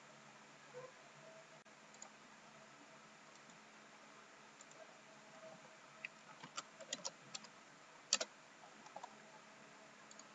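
Faint clicks of a computer keyboard and mouse. A few scattered clicks come first, then a quick run of keystrokes about six to seven and a half seconds in, and a sharper single click about eight seconds in.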